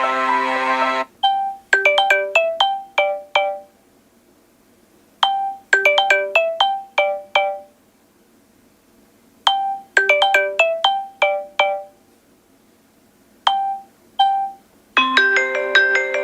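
Samsung Galaxy S6 Edge stock ringtone playing: a short chiming melody of quick-decaying notes, repeated three times with pauses of about two seconds between. A held chord sounds at the start, ending about a second in, and another begins near the end.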